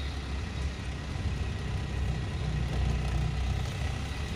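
Car engine running and road noise heard from inside the cabin while the car moves slowly: a steady low hum that shifts a little in pitch.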